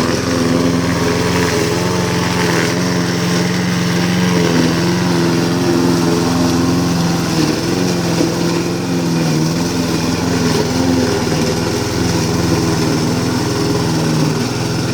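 Lawnmower engine running steadily while cutting grass, its pitch sagging briefly a few times as it takes on load.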